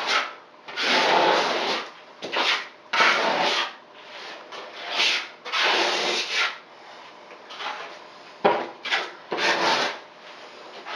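A putty knife scraping over cement board in a run of short raspy strokes, about one a second, smoothing fiberglass mesh tape into a fresh coat of liquid waterproofing membrane in an inside wall corner.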